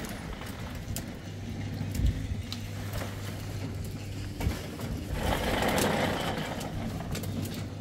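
An engine running steadily with a low hum. There is a single knock about two seconds in, and a stretch of hissing noise a little past the middle.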